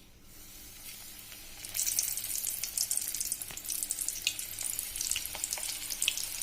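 Coated chicken pieces deep-frying in hot oil: a soft hiss that suddenly jumps to loud, dense sizzling and crackling, with many sharp pops, a little under two seconds in.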